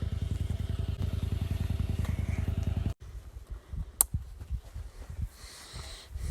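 An engine idling with an even, rapid low pulse, cut off abruptly about three seconds in. Then quieter scattered knocks and one sharp click.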